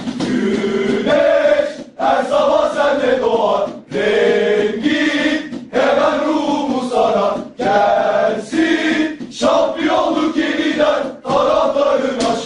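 A large group of football supporters chanting a Bursaspor terrace song in unison. The phrases are sung with a short break about every two seconds.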